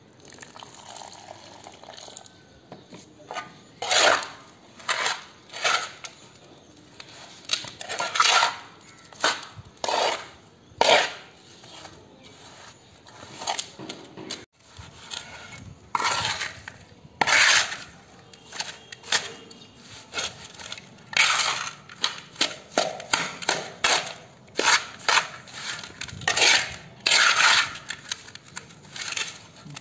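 Steel mason's trowel scraping and knocking against a metal basin while mixing wet mud mortar, in a long series of sharp strokes about one to two a second.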